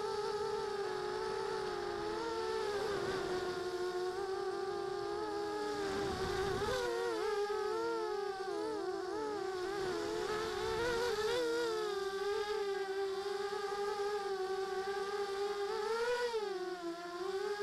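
A small FPV quadcopter's brushless motors and propellers whining as heard from its onboard camera: several close tones that beat against each other and rise and fall with the throttle, with a brief rush of noise about six seconds in. Near the end the pitch dips and settles to a steady whine as the quad comes down onto the grass.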